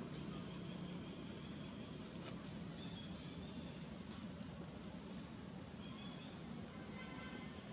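Steady high-pitched drone of insects, unbroken throughout, with a few faint short chirps over it.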